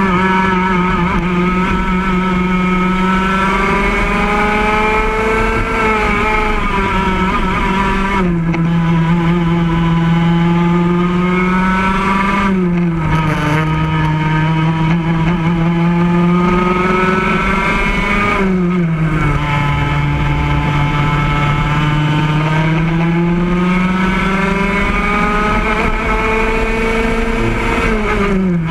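Racing go-kart engine heard from onboard, running hard through a race: its pitch climbs steadily along each straight and drops sharply four times as the driver lifts off for the corners.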